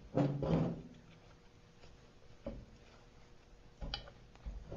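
Metal handling sounds of a small engine's cylinder block being turned on a workbench while the piston and connecting rod are pushed out: two short louder sounds right at the start, then a few faint, scattered knocks.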